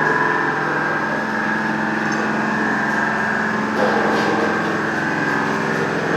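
CNC slant-bed lathe running, a steady whine made of several held tones. A rougher, noisier sound joins about four seconds in.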